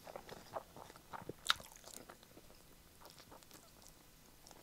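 Close-up mouth sounds of a person eating braised chicken: quiet chewing with small wet clicks, and one sharper click about one and a half seconds in. Near the end the meat is being pulled off a chicken leg bone by mouth.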